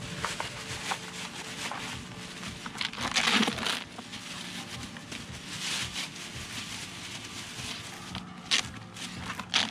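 A plastic bag crinkling and rustling as chunks of old beeswax comb are pulled out of it and dropped into a metal pot, in irregular bursts. The loudest rustle comes about three seconds in.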